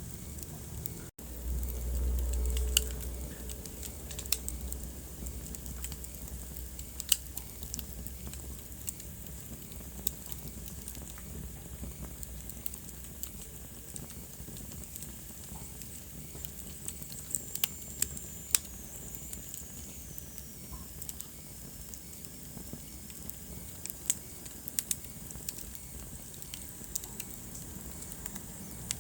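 Wood fire crackling in a fireplace, with sharp pops scattered throughout over a steady low rumble of the flames. A faint high whistle slides downward in pitch a little past the middle.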